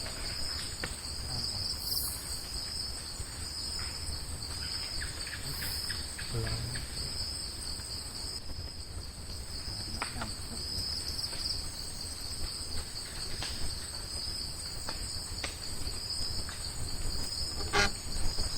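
Night insects, crickets, keeping up a steady high-pitched trilling chorus in two close pitches, over a low rumble, with a few faint clicks.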